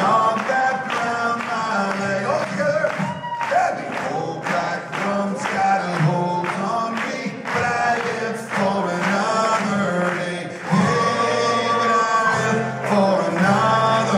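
Live band music: a man singing lead over strummed acoustic guitar, electric bass and a steady drum beat.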